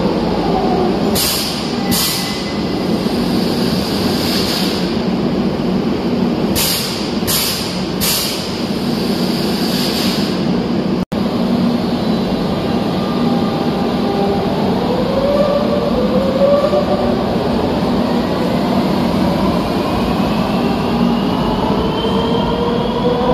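Madrid Metro electric train running, with a steady rumble and hum and several short hisses in the first half. In the second half, several whining tones rise steadily in pitch as the traction motors speed the train up.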